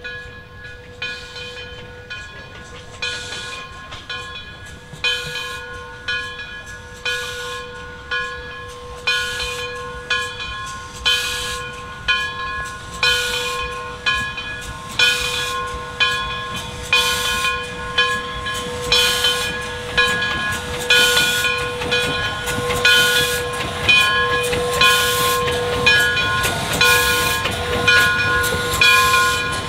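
Steam locomotive working at low speed, its exhaust chuffing in an even beat of about one a second that grows louder as it comes closer. Steam hisses and a steady ringing tone sound under the beats.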